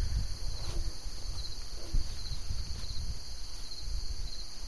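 Insects chirping steadily in a high, finely pulsing chorus, with a low rumble underneath.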